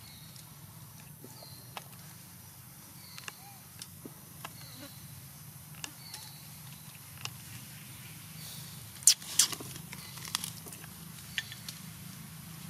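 Monkeys moving about in branches: scattered sharp clicks and rustles of twigs and leaves, the two loudest about nine seconds in. Short high chirps come now and then over a low steady hum.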